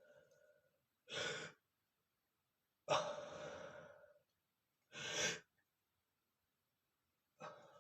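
A man sneezing, the sneezes brought on by sniffing powder. A sharp breath about a second in, then a loud sudden sneeze about three seconds in that trails off over about a second. Another short breath follows about five seconds in, and one more starts near the end.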